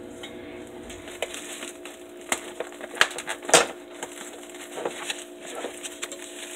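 Hands handling raw chicken tenders and their packaging: about half a dozen short crinkles and knocks, the loudest about three and a half seconds in, over a faint steady hum.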